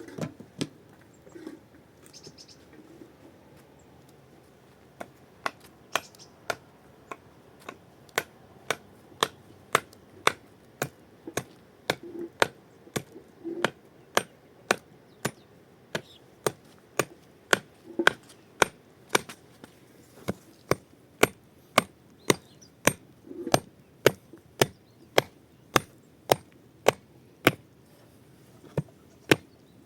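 Steady run of sharp chopping or knocking strikes, about two a second, starting around five seconds in after a few scattered soft knocks.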